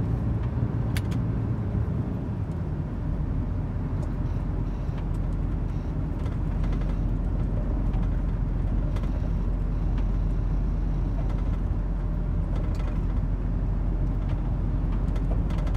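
Steady car engine and road noise, a continuous low rumble from a car being driven.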